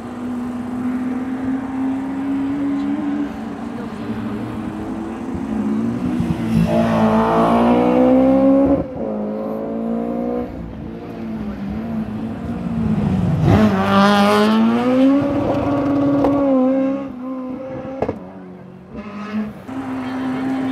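Rally car engine at high revs, its pitch climbing and breaking off twice as it accelerates through the gears on the stage, then settling back to a steady note. A sharp crack comes near the end.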